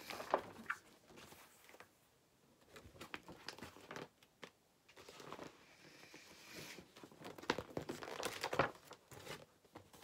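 Pages of a large-format picture book being handled and turned: paper rustling and crinkling with soft taps, coming in short spells with brief pauses and busiest in the second half.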